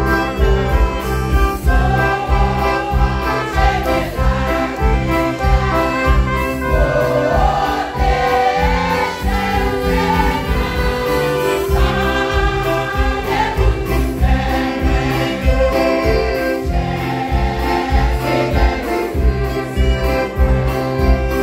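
Women's choir singing a gospel hymn, accompanied by accordion and trumpet over a steady low beat.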